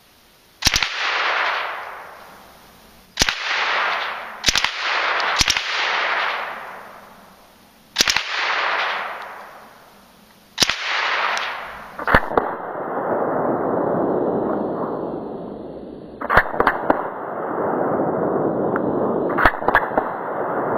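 Suppressed 9mm Uzi submachine gun firing single shots and short bursts of two or three, one to three seconds apart. Each burst is followed by a long, loud fading wash of sound. In the second half a steady rush runs on beneath two more short bursts.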